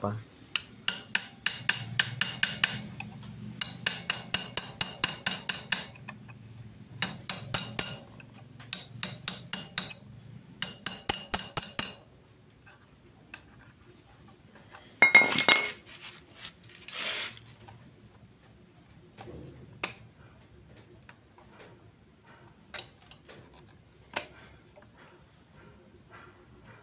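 Screwdriver tapping and prying, metal on metal, at an engine oil seal to break the rubber away from its metal insert: runs of rapid ringing taps for about twelve seconds, then two louder scrapes and a few scattered clicks.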